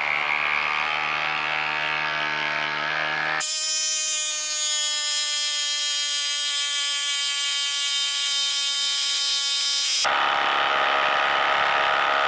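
Hilti Nuron cordless impact driver hammering an 8-inch lag bolt into a tough wood stump, played back sped up. Its sound changes abruptly about three seconds in and again about ten seconds in.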